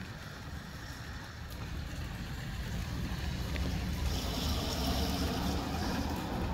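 Gusty southwest wind buffeting the microphone with a deep rumble, and a rushing hiss through the trees. It swells about three to four seconds in.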